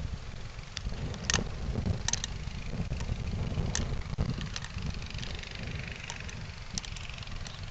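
1998 Ford Crown Victoria Police Interceptor's 4.6-litre V8 running with a steady low exhaust rumble and scattered sharp ticks; the car has an exhaust leak. A faint hiss rises and falls in the second half.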